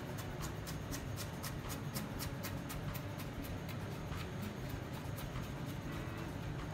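Kitchen knife mincing on a plastic cutting board: a quick, steady run of light blade taps, about four a second.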